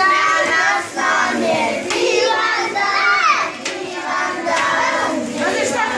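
A group of children and adults singing a birthday song together, with hands clapping along.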